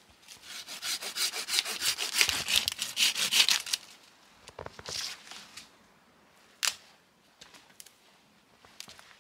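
Small hand saw cutting through a tree branch in quick, rhythmic back-and-forth strokes for about four seconds. The sawing is followed by rustling and one sharp crack.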